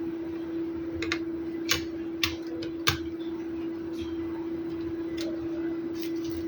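About nine short, sharp clicks and taps at irregular intervals, the loudest about three seconds in, over a steady low hum.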